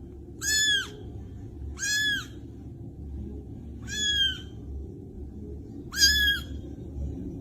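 A small animal calling four times, short high-pitched cries that rise and fall, about two seconds apart.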